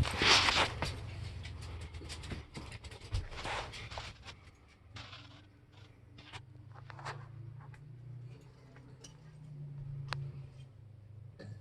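A dog panting and moving about, with scattered sharp clicks and a low steady hum that comes in about halfway through.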